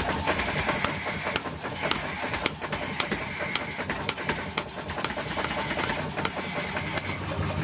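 Hand hammer knocking on a red-hot axe head held with tongs on an anvil, many sharp knocks over a rhythmic mechanical clatter that starts and stops about once a second.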